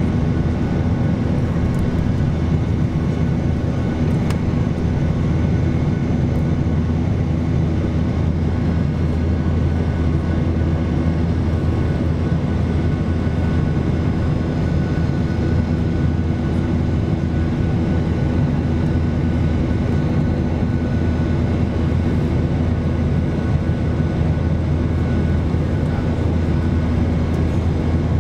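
Jet airliner engines and rushing air heard inside the cabin in flight: a steady low drone with a faint steady whine above it.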